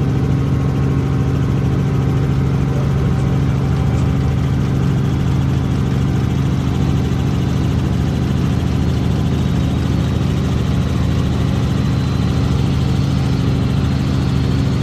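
Helicopter engine and rotor heard from inside the cabin during takeoff and climb-out: a steady, loud drone with a low hum.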